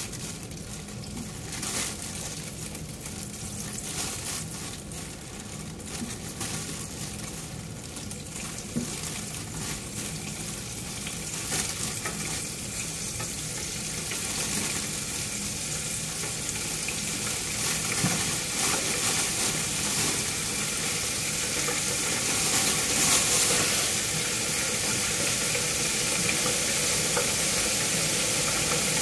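Flour-dredged shrimp deep-frying in hot oil in a fryer basket: a steady sizzle with crackling pops that grows gradually louder.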